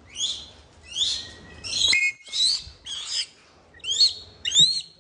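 Young hawk calling close by: a run of about seven high, sharp, upward-sweeping calls, one every half to three-quarters of a second, the last few the loudest.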